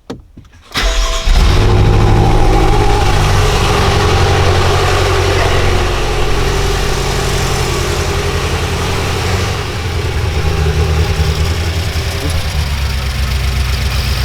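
BMW M6's S63 twin-turbo V8 starting up about a second in, flaring briefly, then idling unevenly. The engine is misfiring on multiple cylinders and shaking.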